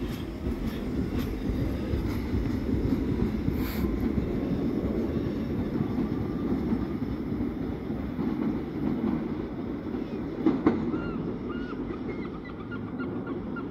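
R46 subway train pulling out and receding along the track, its wheels and running gear rumbling steadily, with clicks over the rail joints in the first few seconds. Near the end it fades a little, and a series of short honking bird calls comes in.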